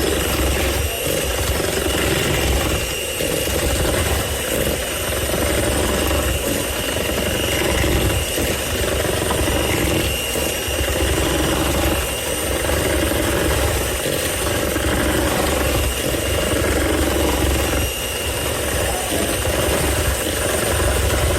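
Electric mixer running steadily with a motor whine, beating chocolate cake batter.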